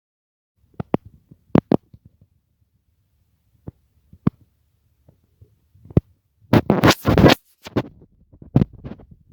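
Scattered sharp knocks and clicks, with a scraping rustle lasting under a second about six and a half seconds in.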